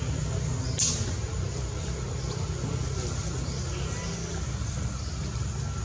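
Steady low rumble of a motor vehicle engine running. A single brief, sharp high sound comes about a second in.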